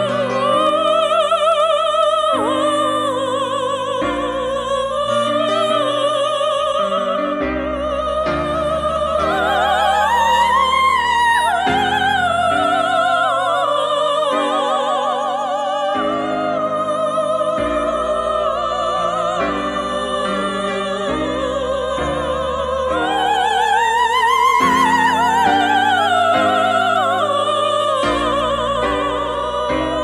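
A woman singing in operatic style with wide vibrato, amplified through a handheld microphone, over an accompaniment of sustained chords. Her voice climbs to high held notes about ten seconds in and again about twenty-four seconds in.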